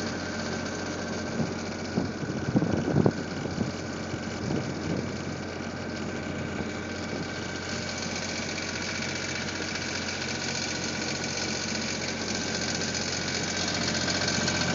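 Case skid steer engine running steadily, with a few sharp knocks about two to three seconds in.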